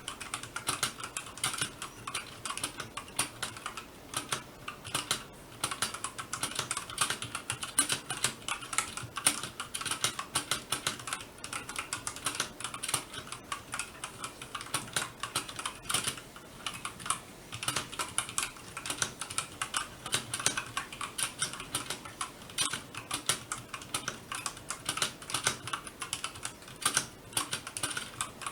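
Continuous typing on an RK61 mechanical keyboard with tactile brown switches: a steady run of quick, irregular key clicks and clacks.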